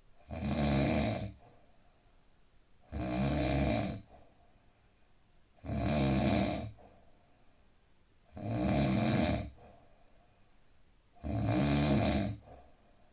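A man snoring: five loud snores, each about a second long, coming evenly a little under three seconds apart, with much quieter breathing gaps between them.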